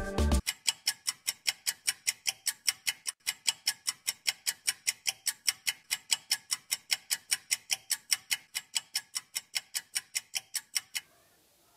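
Sharp, even ticking, about four ticks a second, which stops suddenly near the end. A music track cuts off just before the ticking begins.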